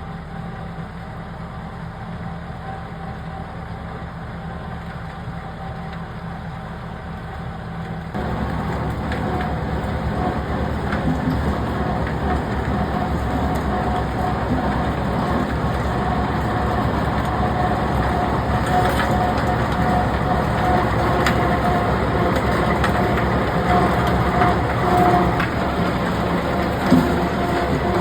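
Heavy diesel road-construction machinery running steadily, growing louder from about eight seconds in.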